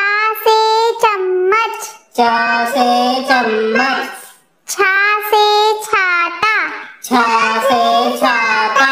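A child singing a Hindi alphabet rhyme, with almost no backing music, in four short phrases of about two seconds each.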